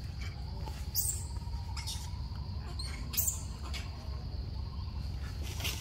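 Four short, high-pitched animal squeaks spaced over several seconds, over a steady high insect buzz.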